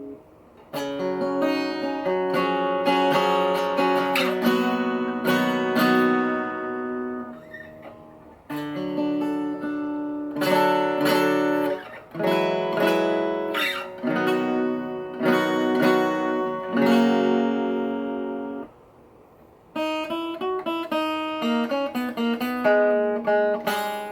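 Egmond archtop acoustic guitar, freshly repaired and restrung, strummed in several groups of chords with short pauses between, then single notes picked up and down near the end. The fretboard is a little buzzy: a few frets sit high.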